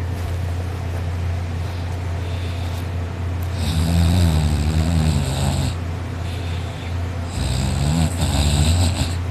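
A man asleep snoring loudly: two long snores, one about four seconds in and one near the end, each with a wavering rasp, over a steady low hum.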